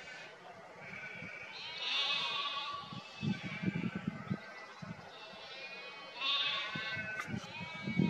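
Several drawn-out, wavering bleating animal calls, one about two seconds in and another about six seconds in, with low rumbling noise between them and a sharp click near the end.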